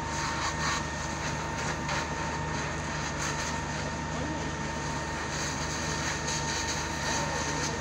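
Fire truck engine running steadily: a low drone with a constant high whine. A few faint crackles come through here and there.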